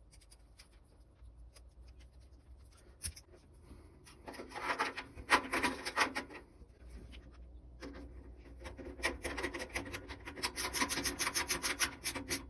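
Rubbing and scraping in rapid strokes, in two bouts: one about four seconds in, the other from about eight seconds on.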